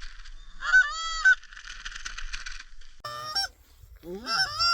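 Geese honking: a buzzy, raspy run of calls, a clear honk about a second in, and two more honks in the last second and a half.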